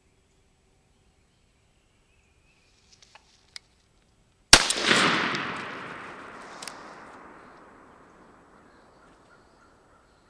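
One shotgun blast about four and a half seconds in, its echo rolling away over several seconds; a few faint clicks come just before it.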